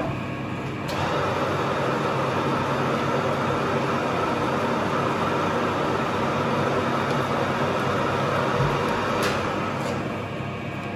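Metalworking lathe starting up about a second in and running steadily with the four-jaw chuck spinning, while a chamfering tool in the tailstock drill chuck chamfers the mouth of a tapped hole in an aluminium part. The lathe winds down near the end.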